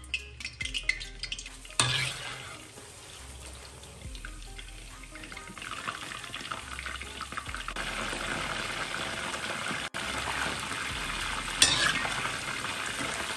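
Battered chicken cubes deep-frying in hot oil: crackling at first, then a steady sizzle of bubbling oil that fills out from about six seconds in, with a sharp click near the end.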